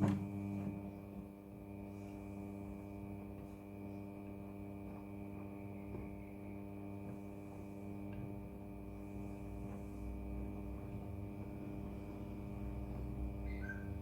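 Midea front-loading washing machine's pump switching on with a click and humming steadily at one unchanging pitch, with many overtones.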